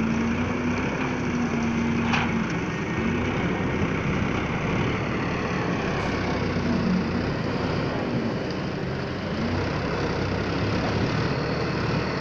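Tractor engine running steadily to power a hydraulic grab loader lifting sugarcane, its note dipping and recovering a few times as the loader works.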